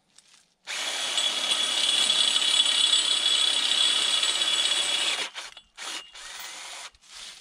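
Handheld power tool running with a steady whine for about four and a half seconds, then started and stopped in three short bursts.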